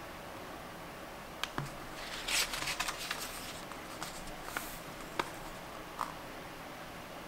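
Paper pages of a small handmade book being handled and turned: a rustling page turn about two seconds in, a shorter rustle a little later, and a few sharp ticks of fingers against the paper.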